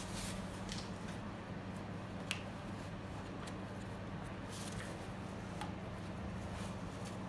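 Faint rubbing and a few light clicks as a rubber coolant hose is worked back onto the thermostat housing neck of a Polaris Sportsman 500 ATV, over a steady low hum.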